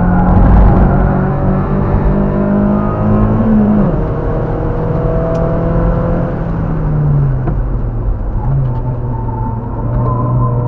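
Car engine heard from inside the cabin on a race track: the revs climb slightly for the first few seconds, then drop sharply about four seconds in and again about seven seconds in, settling at a lower steady note.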